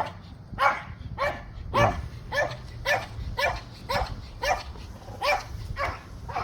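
Dog barking repeatedly in a steady run of short barks, about two a second.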